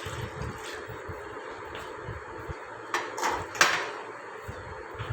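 Kitchen containers being handled on a counter: two short knocks a little over three seconds in, the second a sharp click, over a steady background hiss.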